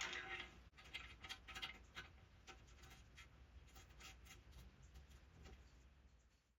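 Faint, irregular clicks and light taps of tools and small metal hardware being handled while the motorcycle front end is bolted together, fading toward the end.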